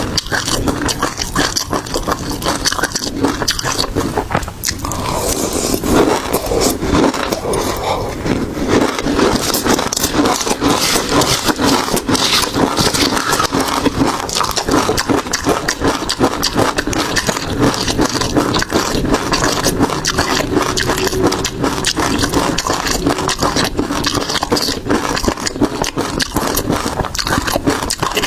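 Close-miked eating sounds of seafood: continuous wet chewing, crunching and crackling, a dense run of small clicks.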